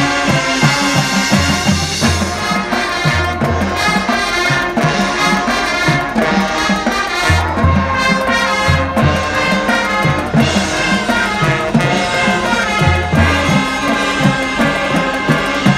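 Marching band playing its show music, led by brass over a recurring low bass line.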